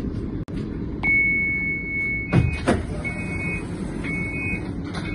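Tram door warning beeps: one long beep about a second in, then three shorter beeps at the same pitch, with two sharp knocks between them, over the steady low hum of the standing CAF Urbos tram.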